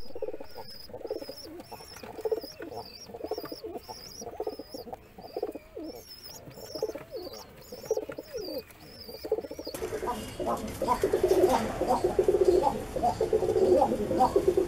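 Pigeons cooing, with a repeated high chirp about twice a second over the first part. About ten seconds in the sound changes abruptly to louder, closer cooing with more background noise.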